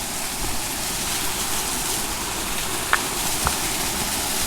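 Waterfall with a thin dry-season flow, its water falling in a steady rush, with two short clicks about three seconds in.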